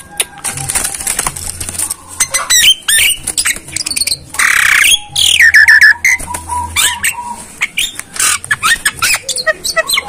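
Myna (jalak) calling: a rapid string of clicks and sharp whistled chirps, with one harsh squawk about four seconds in.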